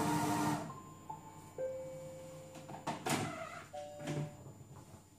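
A Silvercrest Monsieur Cuisine Connect food processor's motor stops after mixing at speed 4. The machine then plays a short chime of three held tones stepping downward, signalling the programme is finished. Near the end the lid clicks and knocks as it is unlocked and lifted off, with two more tones.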